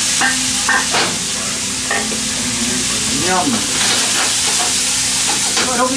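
Rice and chicken frying in a hot frying pan over a gas burner, a steady loud sizzle, with a utensil clinking and scraping against the pan as the rice is worked in, the clinks coming several times in the first two seconds.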